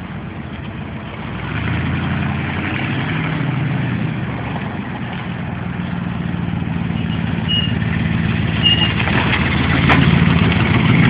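A Ford Bronco's engine running at low speed through a custom-bent true dual exhaust with no mufflers, a steady low note. It grows louder as the truck approaches and pulls up close.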